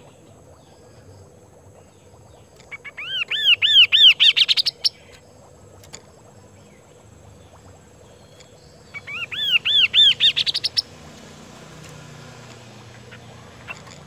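Chestnut-capped babbler singing twice. Each phrase is about two seconds of quick, repeated arched whistles that climb higher toward the end.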